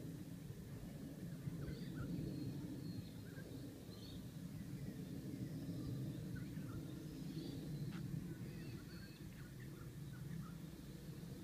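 Outdoor ambience: a steady low rumble, with faint, short bird chirps scattered throughout.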